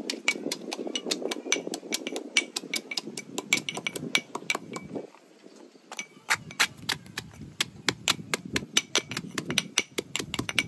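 Metal pestle pounding dry toasted bread in a small metal mortar: quick metallic knocks, several a second, with the bread crunching into crumbs. The pounding stops briefly about halfway, then starts again.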